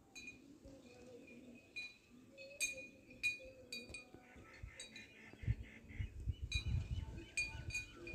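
Faint, irregular high clinks that ring briefly, a few every second, with low dull knocks joining from about halfway through.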